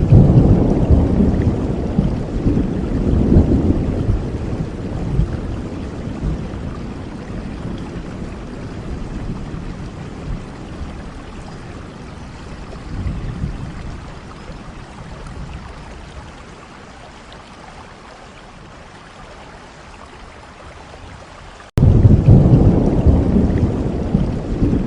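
Steady heavy rain with rolling thunder: a loud low rumble fades slowly over about fifteen seconds into the rain's even hiss, then a second thunderclap breaks in suddenly near the end.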